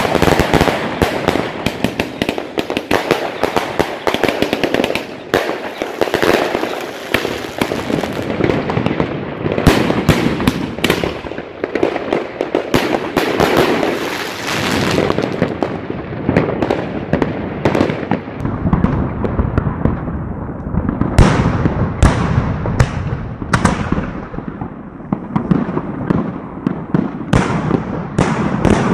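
Svea Fireworks Ragnarök, an 86-shot consumer fireworks cake with 18–45 mm tubes, firing a rapid run of shots, with tubes launching and shells bursting overhead in a dense stream. In the later part the shots come as more distinct, separate bangs.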